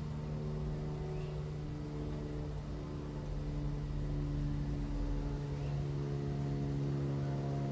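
Boeing 767 freighter's twin jet engines heard from the ground as a steady low rumble with a constant hum, with fainter tones above it that shift in pitch now and then.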